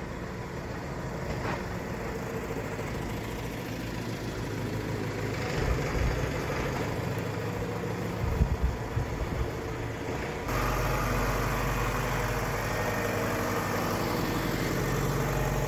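Tractor engine idling steadily, with a few knocks a little past halfway. About two-thirds of the way through, the sound jumps to a louder, steadier engine hum.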